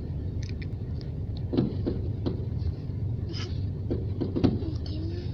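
Fireworks going off some way off: several sharp bangs a second or so apart over a steady low rumble.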